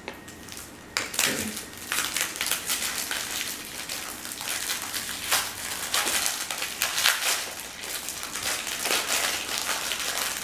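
Thin plastic wrapper crinkling and crackling in irregular rustles as it is picked open and handled around a seed brittle bar.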